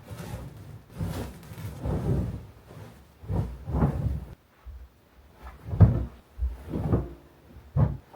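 A string of irregular thuds and knocks with rubbing between them, like objects being handled and set down; the sharpest knock comes about six seconds in, with another near the end.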